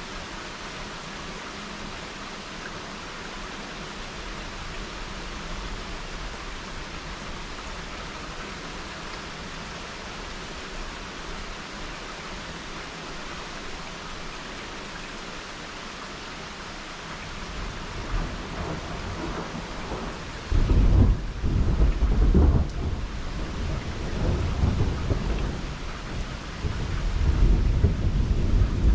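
Thunderstorm: steady rain hiss, then a low rumble of thunder builds about eighteen seconds in and turns suddenly loud a couple of seconds later. It rolls on for several seconds and swells again near the end.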